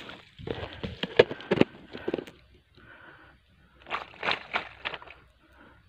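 Handling noise: two bursts of rustling with short knocks as the camera is handled and moved by hand.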